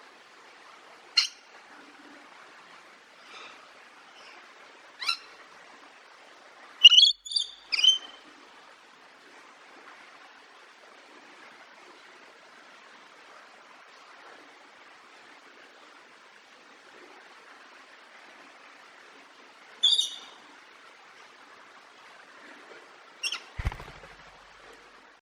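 Parrot giving short, sharp calls and chirps several seconds apart. The loudest is a quick run of calls about seven seconds in, and a low bump sounds under the last pair near the end, all over a steady faint hiss.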